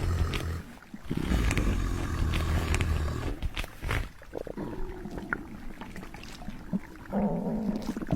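Long, deep, rough burps: one ends about half a second in, and after a short pause a second lasts about two seconds. Quieter, irregular sounds follow.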